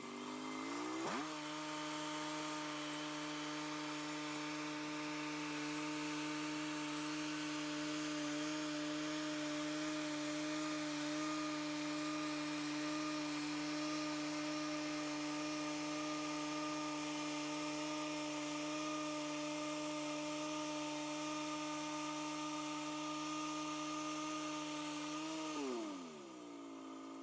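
Engine of a band sawmill revving up about a second in and running steadily at cutting speed while the blade goes through the log, then dropping back down toward idle near the end.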